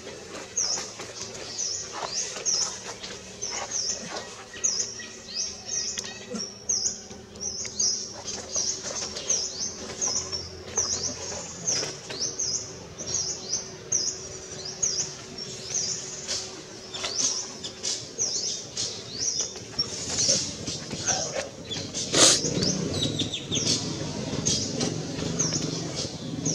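Newborn long-tailed macaque crying: a string of short, high, squeaky calls, about two a second, with one louder, harsher cry near the end.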